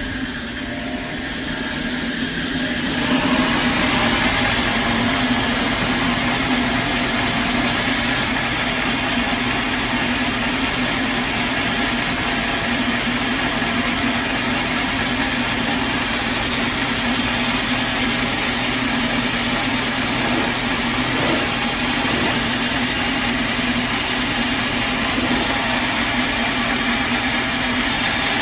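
Sawmill machinery running, a steady mechanical noise with a constant low hum. It grows louder about three seconds in, then holds level.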